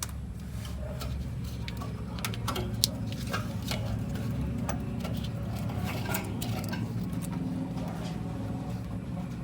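Metal parts and hand tools clicking and clinking irregularly during work on a car's fuel system, over a steady low hum.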